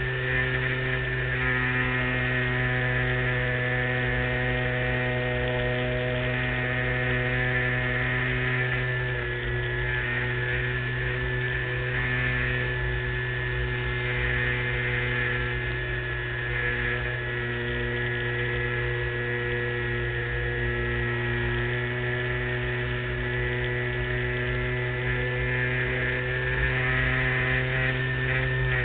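LazyBee RC model airplane's motor and propeller running steadily in flight, a steady hum heard close up from a camera mounted on the wing. Its pitch shifts slightly a few times.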